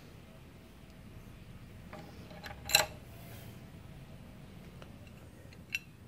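Steel wrench and socket clinking once against the motorcycle's front axle bolt as the tool is worked and pulled off: one sharp metallic clink with a short ring almost three seconds in, with a few faint ticks before and near the end over a low hum.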